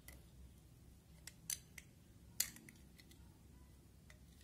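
Clear slime being folded onto a glass plate, making a few short, sharp clicks and pops between about one and two and a half seconds in, the last the loudest.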